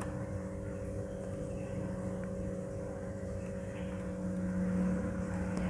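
A steady mechanical hum with a few held tones over a low rumble, growing slightly louder after about four seconds.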